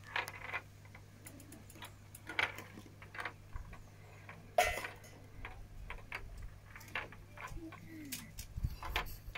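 Perplexus Rebel maze sphere turned in the hands, its small steel ball rolling and clicking against the plastic tracks inside the clear shell: irregular ticks, with a sharper knock about four and a half seconds in.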